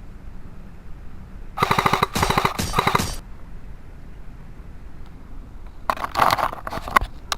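Airsoft gun firing on full auto: two rapid bursts of fire, one starting about a second and a half in and lasting about a second and a half, and a shorter one near the end.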